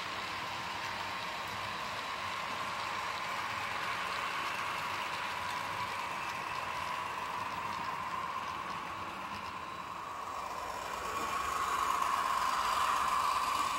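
H0 model trains running on the layout: a steady rolling rattle of wagon wheels on the track with motor hum. It grows louder about eleven seconds in as a model diesel locomotive passes close by.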